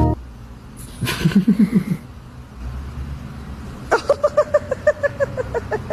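An animal's rapid chattering calls: a short, low pulsing run about a second in, then a longer run of quick, evenly spaced higher calls, about seven a second, from about four seconds in.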